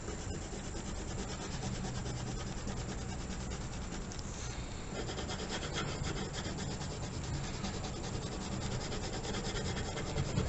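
Colored pencil rubbing on paper in quick, steady back-and-forth strokes as an area is colored in.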